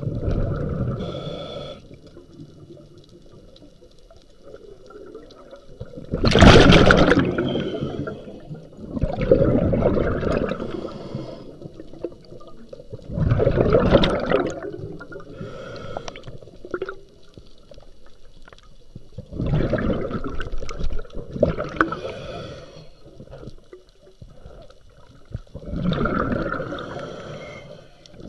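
Diver breathing through a scuba regulator underwater: each breath is a rushing hiss followed by a bubbling gurgle of exhaled air, repeating slowly and regularly.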